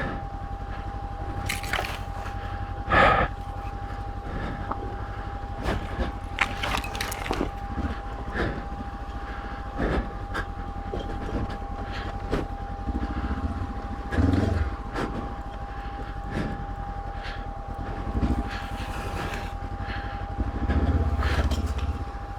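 Honda CB500X parallel-twin motorcycle engine running at low revs, with scattered knocks and cracks from the bike moving over rough trail. The engine sound swells about two-thirds of the way in and again near the end.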